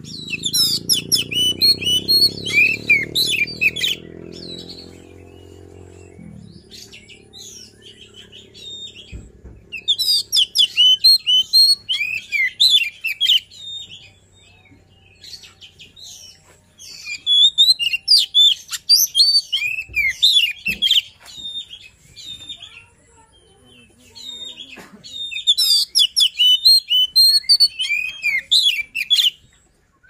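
Oriental magpie-robin (kacer poci) singing in four loud bouts of fast, varied high notes, with a few scattered notes in the pauses between them.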